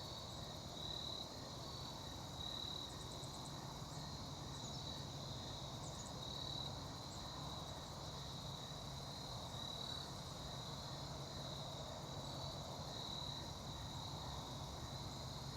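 Steady outdoor insect chorus: a continuous high trill that swells slightly in strength now and then, over a faint, even low background noise.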